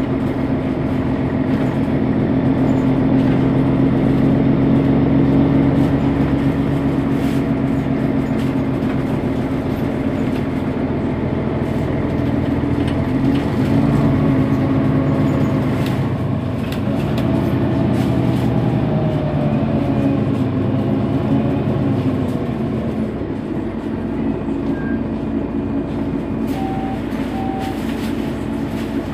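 Mercedes-Benz Citaro facelift city bus running, a steady diesel engine drone whose pitch rises and falls a few times in the middle.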